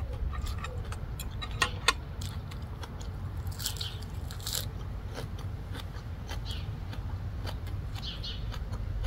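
Close-up chewing and biting of fresh coriander and papaya salad: a run of small crisp crunches and mouth clicks, with two sharper crunches about two seconds in.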